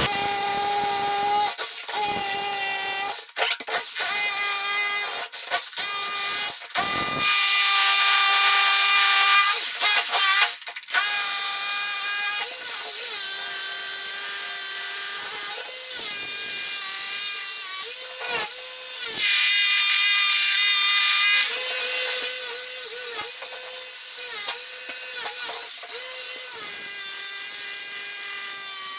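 Bosch angle grinder cutting down high spots in old concrete: a steady high motor whine, switched off and on several times in the first ten seconds, then running on with its pitch sagging and wavering as the disc bites into the concrete.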